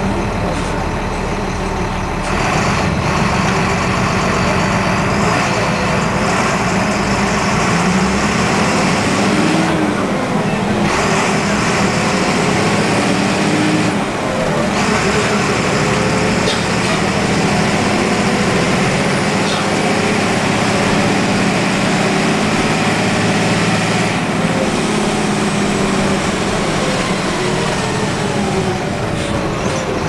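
Volksbus 17.230 EOD city buses, their MWM 6.12TCE six-cylinder turbodiesel engines running under load as they drive off, the engine note rising and falling in pitch. Several separate passes, cut together.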